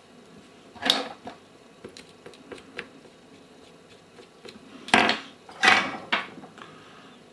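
Handling noise at a soldering bench: sharp knocks and clatters of small hard objects, with a loud one about a second in, lighter ticks after it, and a louder cluster of three about five to six seconds in.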